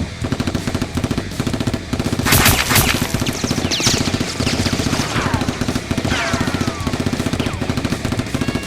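Rapid automatic gunfire, a continuous fast rattle of shots throughout, with a few falling ringing tones layered over it, likely added as a sound effect for a Nerf-blaster shootout.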